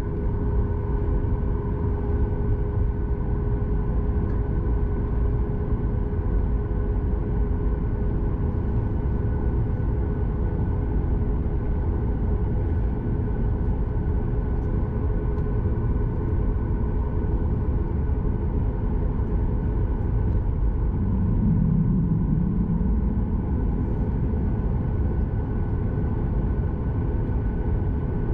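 Boeing 737 MAX 8 cabin noise heard from inside the cabin: a steady deep rumble with a hum of several steady whining tones from the engines and air systems, swelling briefly about 21 seconds in.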